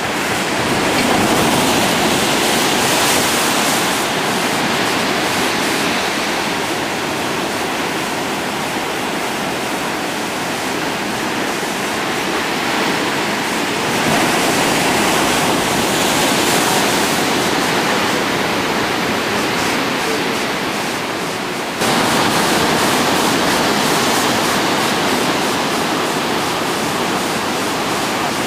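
Heavy Atlantic surf breaking over black volcanic rocks: a steady rush of churning water that swells and eases, jumping suddenly louder about two-thirds of the way through.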